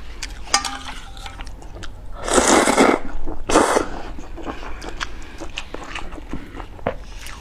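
Close-miked eating: glass noodles being chewed with small wet clicks, broken by two loud slurps about two and three and a half seconds in, the first longer than the second.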